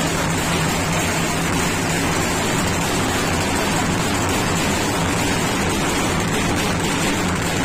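A large group of dhol drums played with sticks, loud and steady, the strokes blending into one dense din.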